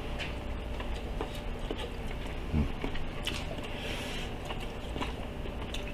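Light, scattered clicks of chopsticks and tongs against a cast-iron pot-lid griddle as food is picked off it, over a steady low hiss.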